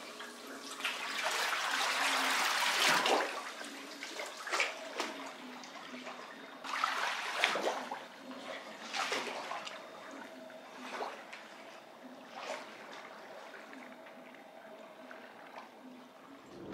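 Water splashing and lapping: a louder rush in the first few seconds, then single splashes every second or two.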